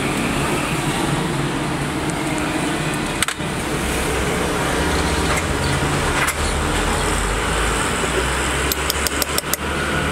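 Steady background rumble and hiss, like motor traffic, with an occasional sharp click and a quick run of about eight clicks near the end.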